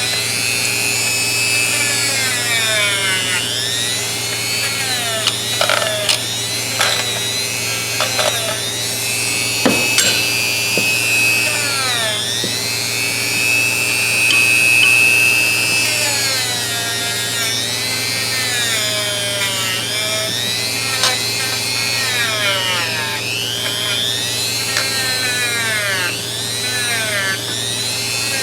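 Small power-driven wire wheel whining against a steel adjustable wrench to clean it up. Its pitch sags each time it is pressed into the metal and climbs back as the pressure eases, over and over.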